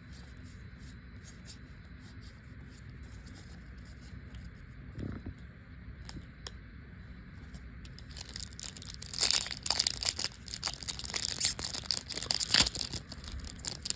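A trading card pack wrapper being handled and torn open: a dense crinkling and tearing that starts about eight seconds in and keeps going, after a few seconds of quiet with light handling ticks.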